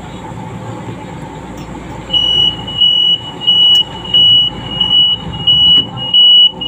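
LRT train's door warning buzzer beeping repeatedly at a station stop, a single high tone about three beeps every two seconds, starting about two seconds in over the low rumble of the train.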